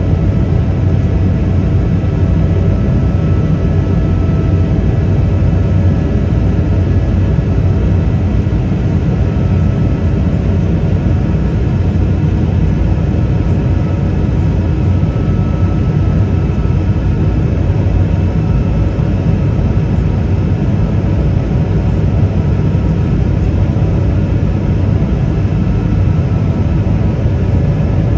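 Inside the passenger cabin of an Airbus A220-300: the steady, loud drone of its Pratt & Whitney PW1500G geared turbofan engines and cabin noise. It is a deep rumble with a few faint steady tones on top, and it does not change.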